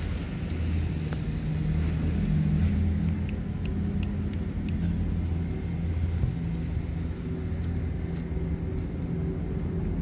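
A steady low motor drone, like an idling engine, whose pitch shifts slightly now and then, with a few faint ticks over it.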